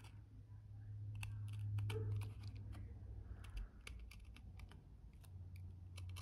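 Utility knife blade trimming the edge of two glued layers of leather: irregular small clicks and scrapes as the blade bites and the offcut strip peels away, over a steady low hum.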